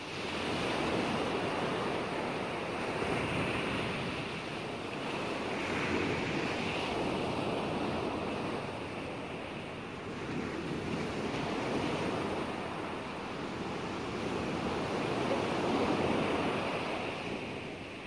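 Steady rushing water noise that comes up sharply at the start, then swells and eases slowly over several seconds.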